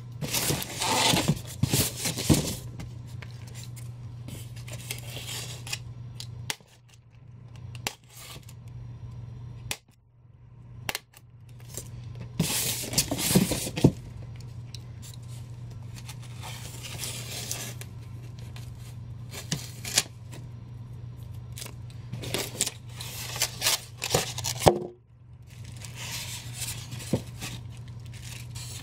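Styrofoam packaging blocks being handled and pulled apart, scraping and rubbing in separate bursts a few seconds apart, with a clear plastic bag rustling near the end. A steady low hum runs underneath.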